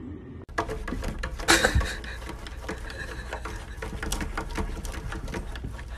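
A cat pawing and scratching at a window pane, its claws making rapid tapping and scraping on the glass, with a louder knock about a second and a half in.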